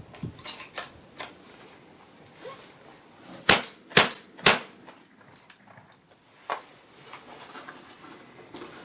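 Remington 11-87 20-gauge gas-operated semi-automatic shotgun fired three times in quick succession, about half a second apart, with B&P 15/16-ounce loads. A few light clicks come about three seconds before the shots.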